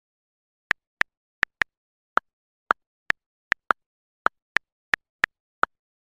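Smartphone keyboard clicks as a text message is typed: about fourteen short, separate taps at an uneven pace, starting just under a second in.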